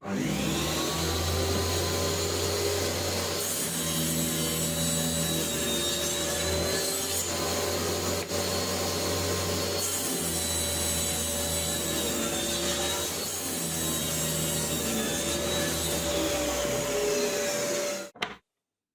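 Table saw running and cutting plywood on a crosscut sled, its steady motor hum overlaid by a harsher cutting noise that swells in three stretches as the blade passes through the wood. The sound cuts off suddenly near the end.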